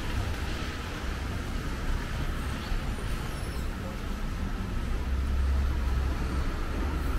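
Low rumble of TTC hybrid-electric city buses running at the curb, over a steady hiss of wet-street traffic. The rumble grows a little louder about five seconds in.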